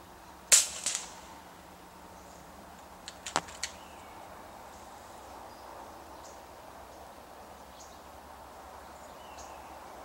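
A sharp snap about half a second in, with a smaller one right after it, then a quick cluster of fainter clicks around three and a half seconds, over a faint steady outdoor hiss.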